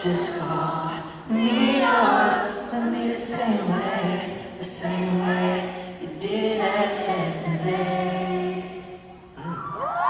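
Many voices singing a melody together, like a concert crowd singing along, over sustained low notes.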